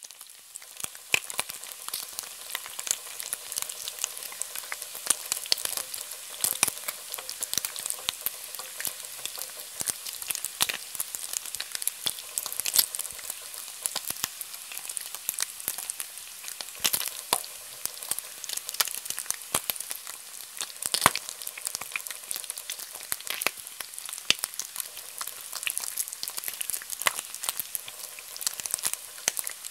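Bacon frying in a pan: a steady sizzle of hot fat with frequent sharp crackles and pops.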